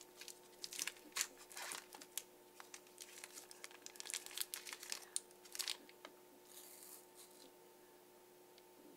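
Shiny plastic wrapper of a small chocolate wafer bar being torn open and crinkled by hand: irregular crackling that stops about six seconds in.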